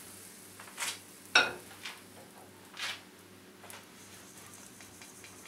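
A metal ladle knocking against a stainless steel mixing bowl: one sharp, ringing clang about a second and a half in, with a few softer knocks and scrapes around it.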